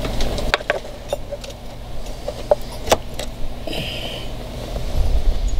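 Small metallic clicks and clinks as a hairpin clip is pushed through the throttle cable end on a Yamaha F70 outboard's throttle lever, securing the adjusted cable, with a brief squeak about four seconds in.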